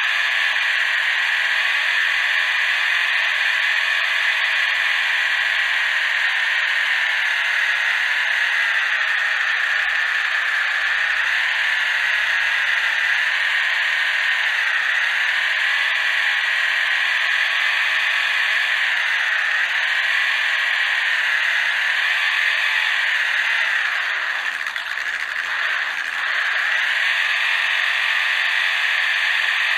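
Stock electric motor and gears of a 1:32 Orlandoo Hunter OH32P02 RC crawler whining, heard close up from on board. The pitch dips and rises again and again with the throttle, and near the end it eases off and falls quieter for a moment.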